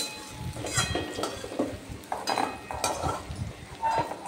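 Flat steel spatula scraping and knocking against a wok in a run of short strokes as fried diced potatoes are scooped out, with the hot oil sizzling underneath.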